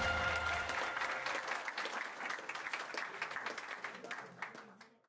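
Audience applauding, fading out steadily until it stops just before the end.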